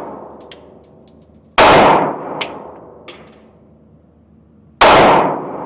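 Two handgun shots about three seconds apart, each a sharp crack followed by an echo trailing off over about a second.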